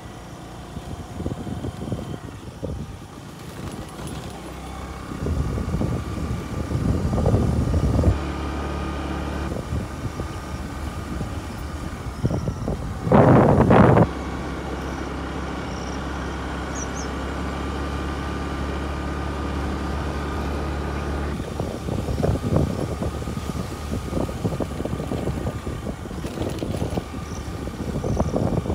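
Motor vehicle driving over a rough off-road track: a steady engine drone with uneven bumps and rattles from the rough ground. About halfway through there is a loud rush lasting about a second.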